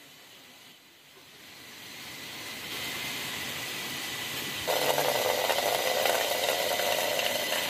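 Water running from a plastic hose pipe and splashing onto the ground and a bowl, a steady hiss that grows louder over the first few seconds, then jumps sharply louder about five seconds in.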